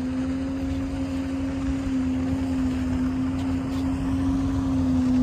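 Motorboat engine running steadily out on the lake, a constant hum whose pitch eases slightly lower near the end.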